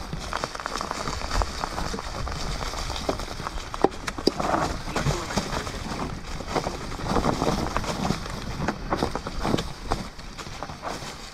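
Mountain bike being ridden over a rough trail: irregular clacks, knocks and rattles from the tyres and bike hitting the ground, over a low rumble of wind on the microphone.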